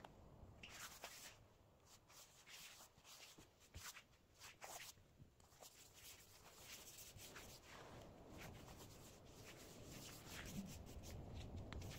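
Faint rubbing of a cloth pad wiping oil finish across an oak tabletop, heard as scattered soft scuffs over near-silent room tone.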